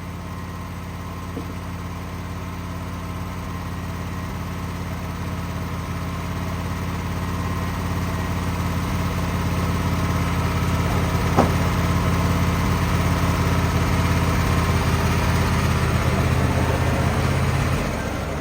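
Wood-Mizer band sawmill's engine running steadily while the band blade cuts through a maple log, growing gradually louder, with one sharp tick about eleven seconds in. The engine sound drops off near the end.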